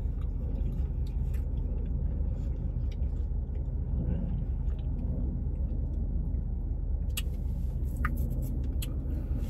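A steady low rumble, with a few faint clicks and mouth sounds of someone eating a bite of shell mac and cheese.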